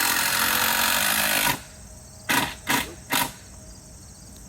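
Cordless drill driving a screw into wood, running for about a second and a half. Then three short bursts on the trigger.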